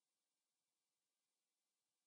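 Near silence: only a faint, steady hiss from the recording.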